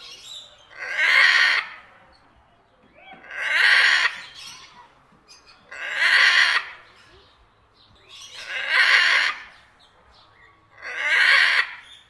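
A parrot giving loud, harsh calls, five in all. Each call lasts about a second, and they come at a steady pace of about one every two and a half seconds.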